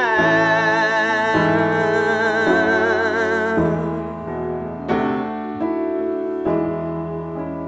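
Closing bars of a slow folk song: piano chords under a long held note with vibrato. The held note ends about three and a half seconds in, leaving the piano alone, its chords struck about once a second and fading.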